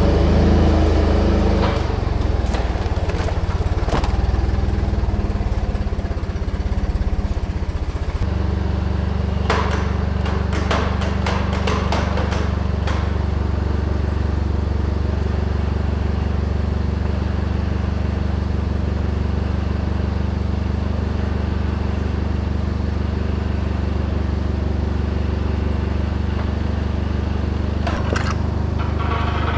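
Propane forklift engine idling steadily, its note changing about eight seconds in. A quick run of sharp metallic clicks and clanks comes around ten to thirteen seconds in, and a few more near the end.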